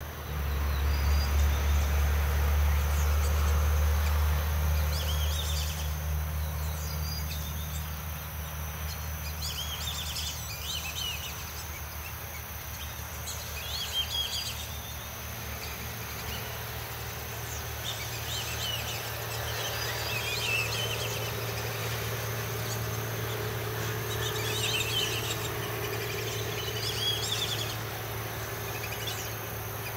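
Black-bellied whistling-ducks calling: short clusters of high whistled notes every few seconds, over a steady low hum that is loudest in the first few seconds and a constant thin high whine.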